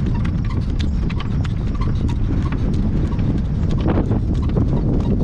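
Hoofbeats of a driving horse at a working trot: a steady run of quick clip-clops over a constant low rumble.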